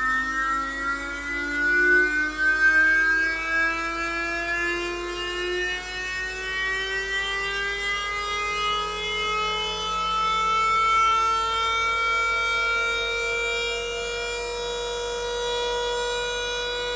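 Electric motor whine spinning up: a many-toned whine rises smoothly in pitch, levels off about halfway through and then holds steady.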